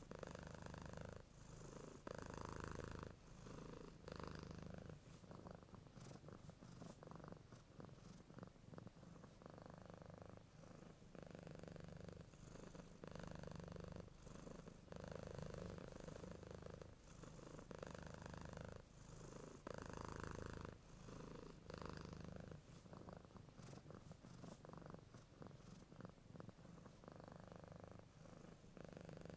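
A cat purring, faint and continuous, in a rhythm that swells and dips every second or two.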